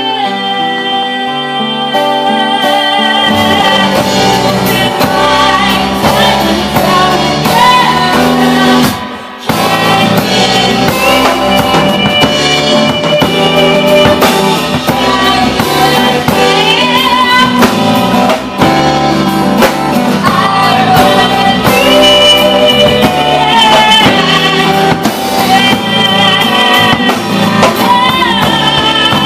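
Live band playing a folk song: a singer holding notes with vibrato over strummed acoustic guitar, with a drum kit joining about three seconds in. The whole band drops out for a moment about a third of the way through, then comes back in.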